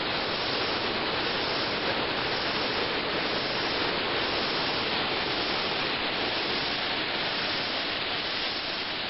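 Rushing white water of a mountain stream tumbling over rocky cascades below a waterfall: a steady, even rush with no breaks.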